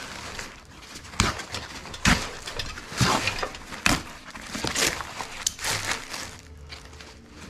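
Foam packing wrap and a plastic bag rustling and crinkling as they are pulled off a boxed part by hand, with a sharp crackle about once a second.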